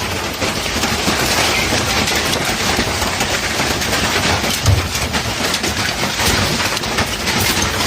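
Hailstorm: hailstones and heavy rain pelting down in a dense, steady clatter of countless impacts, with one louder thump about five seconds in.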